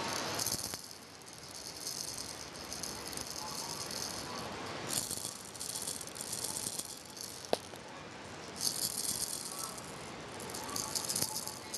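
Baby's rattle toy shaken in several short bursts a few seconds apart, used to test whether the baby turns toward the sound.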